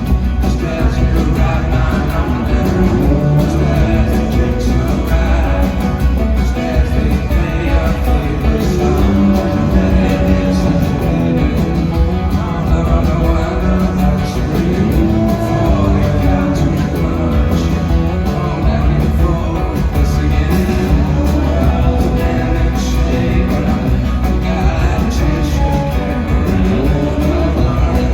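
Live rock band performance: a singer's voice over guitars, steady and loud throughout.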